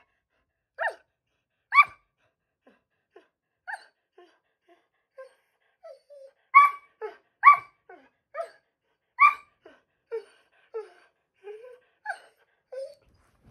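A dog barking in single short barks, spaced out at first and then a quicker run of barks in the middle, with softer, lower-pitched vocal noises in between. It is demand barking, begging for a bite of taco.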